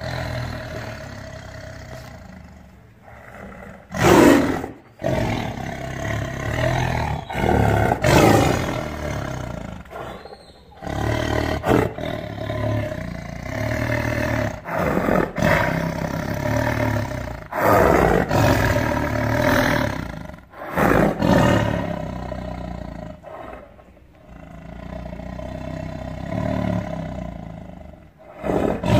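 Tiger snarling and growling at close range in a series of loud bursts, each a second or two long, the loudest about four and eight seconds in.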